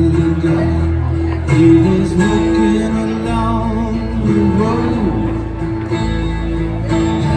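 Live band music: a strummed acoustic guitar, an electric guitar and an acoustic bass guitar playing together, the bass moving between held low notes.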